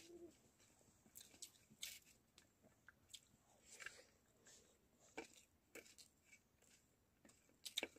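Faint eating sounds of rice eaten by hand: fingers scraping and scooping rice on steel plates and mouthfuls being chewed, heard as short, scattered clicks and smacks.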